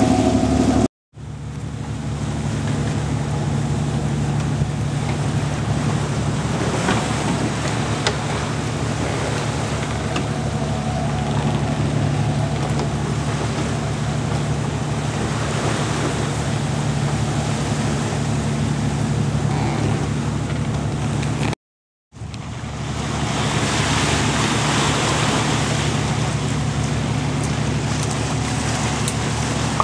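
Wind and water rushing along a schooner under way, an even noisy wash with a steady low drone underneath. The sound breaks off completely twice, about a second in and again about three-quarters through.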